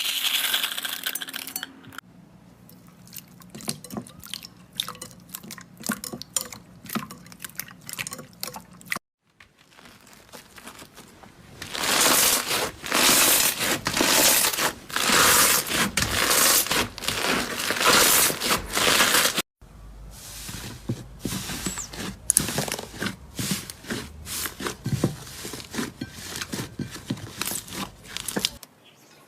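Slime being squeezed and pressed by hand, giving dense sticky clicks, pops and crackles. It comes in several separate segments with abrupt cuts between them, the busiest and loudest stretch in the middle.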